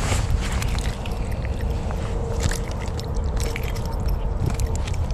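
A hooked bass splashing and thrashing in the water beside a kayak as it is reeled in and lifted out, with scattered clicks and knocks of handling. Under it runs a steady low rumble of wind on the microphone.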